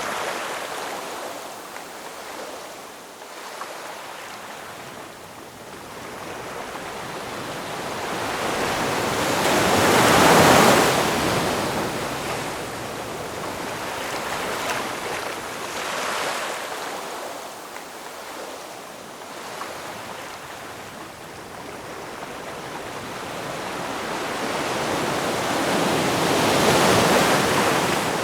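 Ocean waves breaking and washing up the shore in slow swells. The biggest breaks come about ten seconds in and again near the end, with a smaller one between.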